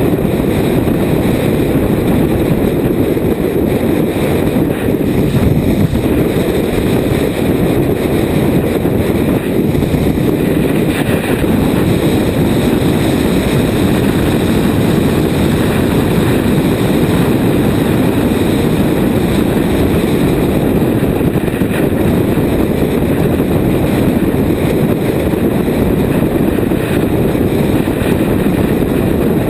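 Steady wind rush buffeting the microphone of a camera on a sport motorcycle cruising at road speed, mixed with the bike's engine and tyre noise.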